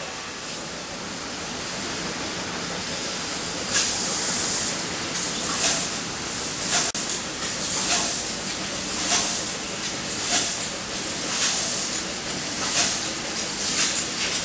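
Fibre laser cutting machine at work: a steady hiss of gas and machinery, then from about four seconds in, short louder bursts of hiss about once a second as the cutting head moves over the sheet metal.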